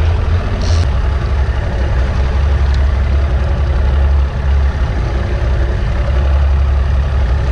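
Small fishing boat's outboard motor running steadily, a low, even rumble.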